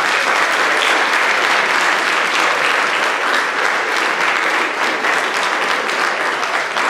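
Theatre audience applauding steadily: a dense, even patter of many hands clapping.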